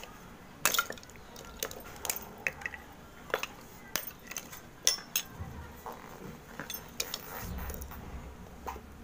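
A flat metal blade scraping and chipping dry multani mitti (Fuller's earth clay), with irregular sharp cracks and clinks as flakes snap off and drop onto the pile. The loudest snaps come shortly after the start and about five seconds in.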